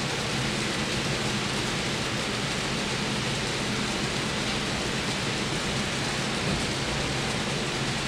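Steady rushing noise of a model freight train's wheels rolling along the track, even and unbroken throughout.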